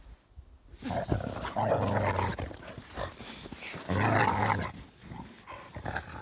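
Two dogs play-fighting, growling at each other in bursts. The growls start about a second in, and the loudest come around two and four seconds in.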